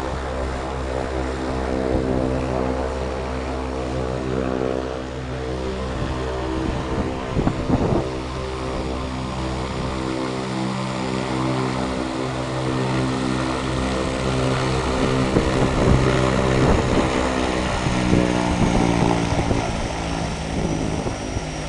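Air Tractor single-engine turboprop aircraft running on the ground, its propeller giving a steady droning buzz that grows somewhat louder in the second half as the plane taxis closer. A high thin whine comes in over the drone in the later part.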